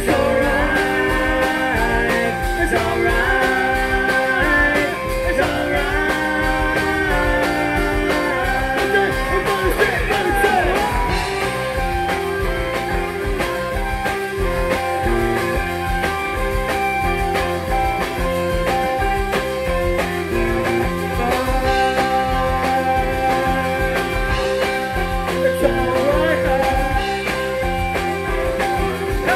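Live rock band playing: electric guitars over a drum kit, with singing, heard from among the audience.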